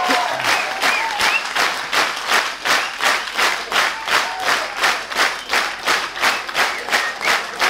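Concert audience clapping in unison, a steady rhythm of about three claps a second, with a few short calls from the crowd above it.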